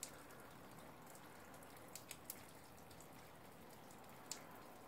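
Near silence: a faint steady hiss with a few light, short ticks, three of them close together about two seconds in and one near the end.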